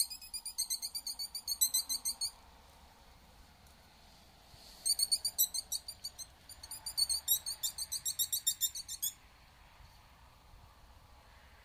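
Wolfers Harp mouth-blown fox call sounded in two quick series of high-pitched squeaks: the first about two seconds long, then after a pause of about two and a half seconds a longer one of about four seconds. Squeaking like this imitates a prey animal in distress to lure in a fox.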